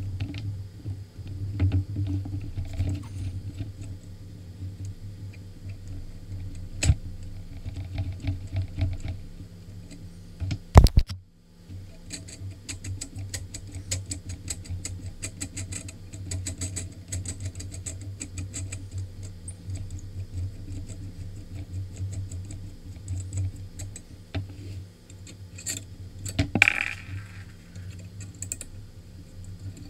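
Small clicks, taps and scraping of a sword hilt being taken apart by hand: the brass pommel unscrewed and the wooden grip worked off the metal tang. A sharp knock stands out about eleven seconds in, over a low steady hum.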